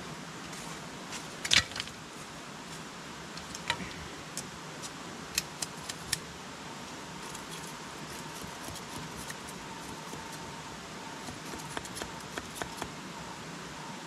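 Sharp clicks and knocks of a curved metal blade against a wooden stick and the ground: a loud one about a second and a half in, a handful more over the next few seconds, and a softer run of small taps near the end, over a steady outdoor hiss.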